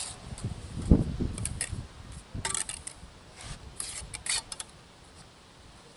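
Steel bricklaying trowel scraping and cutting mortar against the bricks in several short strokes, after a dull thump about a second in.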